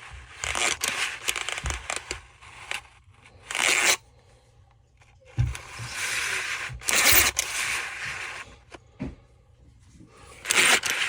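Hand work on cut-off saw parts during reassembly: bursts of scraping and rubbing, each up to about two seconds long, with a few short knocks between them.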